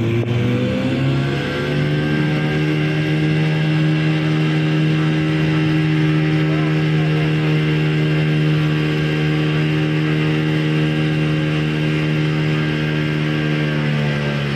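Tour boat's engine speeding up over the first couple of seconds, then running at a steady pitch, and dropping back down near the end.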